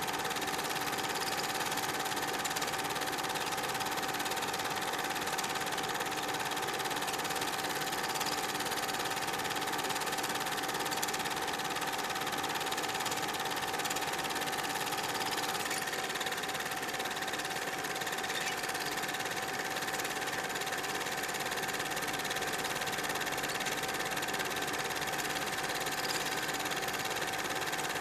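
Super 8 film projector running steadily: an even mechanical whir with a constant tone and hiss over the silent footage.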